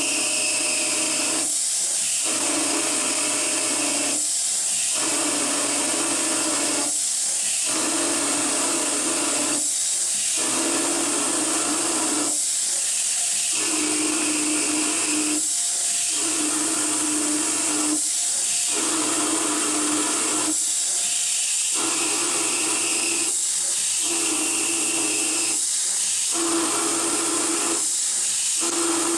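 Novakon Torus Pro CNC mill turning a part in lathe mode: a steady high hiss over a machining tone that breaks off briefly and regularly, about every two and a half to three seconds, as the cutting cycle repeats.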